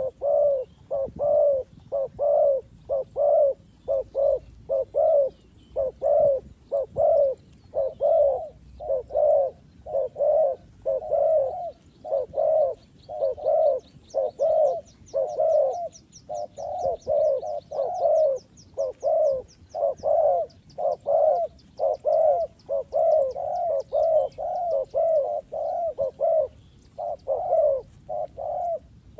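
Spotted doves cooing, an unbroken run of short low coos repeating more than once a second. A small bird's faint, fast high trill runs underneath from about twelve to twenty seconds in.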